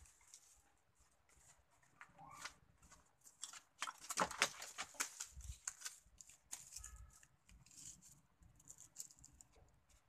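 Irregular footsteps and rustling on dry dirt, leaves and debris, busiest around the middle.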